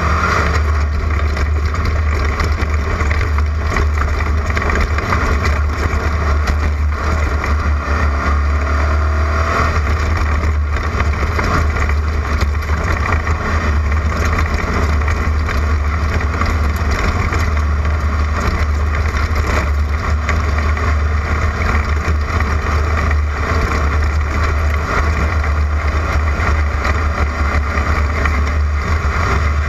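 Class 11 Volkswagen Beetle race car's air-cooled flat-four engine running hard at racing speed. It makes a loud, steady roar over a constant deep rumble.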